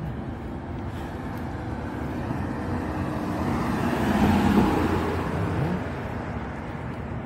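A car passing on the road, building to its loudest about four and a half seconds in and then fading, over a steady low rumble of traffic.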